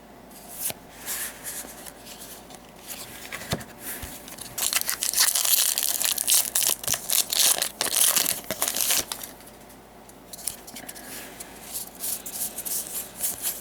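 Crinkly booster-pack wrapper being torn open and crumpled, loudest in a dense crackling stretch of about four seconds in the middle. Trading cards rustle and flick through the hands before and after.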